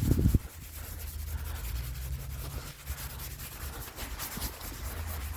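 Gloved hand rubbing and brushing snow off a vehicle's window, a steady scratchy rub, with a brief louder bump at the very start.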